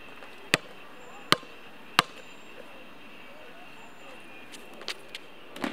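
A Spalding basketball bounced hard on a court three times in the first two seconds, sharp single hits, followed by a few lighter taps near the end over a faint steady background hiss.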